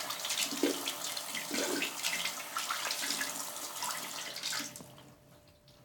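Water running from a bathroom sink tap while hands are washed under it; the flow stops about five seconds in.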